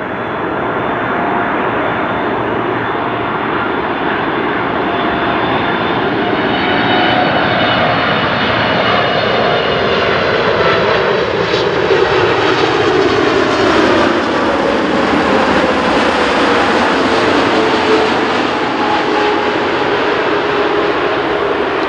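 Boeing 747-8F freighter's four GEnx jet engines on final approach, passing close by: a loud, steady jet noise with whining tones that slide down in pitch as the aircraft goes past, brightest about two-thirds of the way through.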